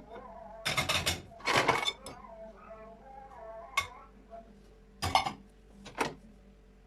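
Dishes and glassware clinking and knocking as they are taken out of a dishwasher rack, about five separate clinks.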